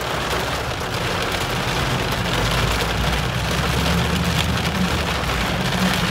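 Heavy rain falling on a convertible's closed roof, heard from inside the moving car, with a low engine and road rumble underneath that grows louder about two seconds in.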